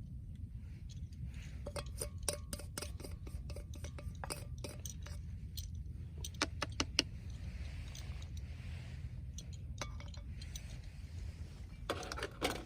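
Eating utensil clinking against a dish as egg is stirred in: a quick, even run of clinks for a few seconds, then scattered clinks and a last flurry near the end, over a steady low rumble.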